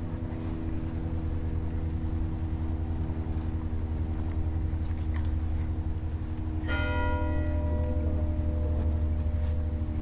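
Sustained bell-like tones held over a low steady hum. About two-thirds of the way in, a new, brighter chord of bell tones is struck and then rings on, slowly fading.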